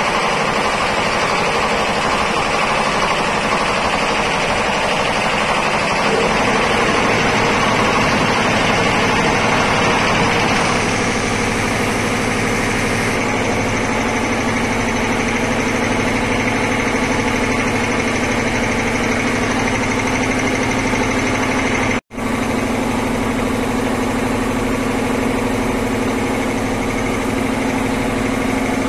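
Electric-motor-driven ELGI piston air compressors running, a loud steady mechanical rattle with a constant hum. The sound breaks off for an instant about three-quarters of the way through.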